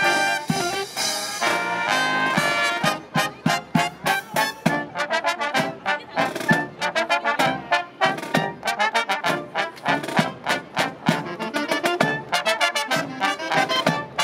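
Brass marching band of trumpets, trombones, saxophones and sousaphone with snare drum playing live. It opens on held chords, then from about three seconds in plays short, detached notes in a quick, even rhythm.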